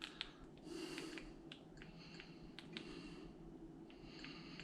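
Faint breathing close to the microphone, in a few soft swells, with several small sharp clicks scattered between them.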